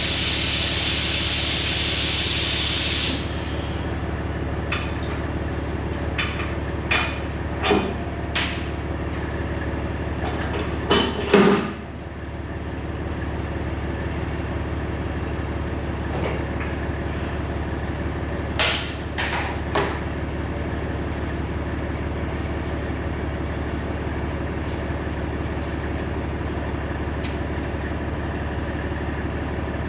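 Diesel semi truck idling steadily while compressed air hisses out for about the first three seconds and then cuts off. After that come a series of sharp metal clanks and knocks, the loudest about eleven seconds in and a few more around eighteen to twenty seconds.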